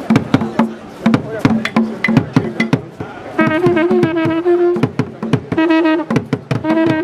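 Band music: a steady beat of sharp drum strokes, joined about halfway through by a horn or brass instrument playing a few held notes.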